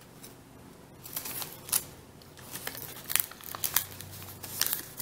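Origami paper being worked by hand as a flap is opened and squash-folded flat, with crisp crinkling and short sharp crackles of creasing, starting about a second in.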